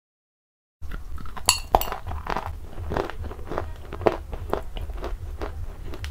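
Close-up crunching of a dry chalky mineral lump being bitten and chewed: a quick, irregular run of sharp, crisp crunches beginning under a second in, over a low steady hum.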